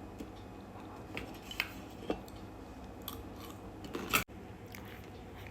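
Faint scattered clicks and taps over quiet room tone, a little louder about four seconds in, where the sound cuts out for an instant.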